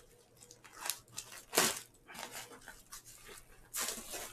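Plastic protective packaging rustling and crinkling in several short bursts as it is cut open with scissors and pulled away from a circuit board. The loudest crackle comes about midway, with another cluster near the end.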